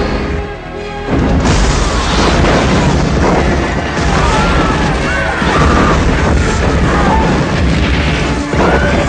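Disaster-film soundtrack of a meteor strike on a city: music under heavy booms and crashes of explosions and falling debris. The sound drops briefly at the start, then comes back loud about a second in.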